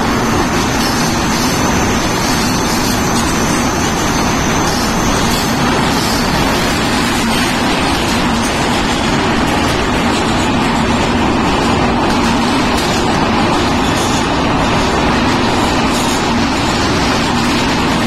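A passenger train running at speed through a tunnel: loud, steady rumble of wheels on rails and rushing air, heard from inside the train.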